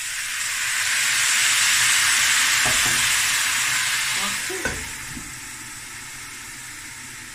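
Water poured into a hot pan of browned chicken pieces and vegetables sizzles and hisses as it turns to steam, the hiss swelling over the first two seconds and dying down after about four. The pan's metal lid knocks down onto the pan about four and a half seconds in, and a quieter sizzle goes on under it.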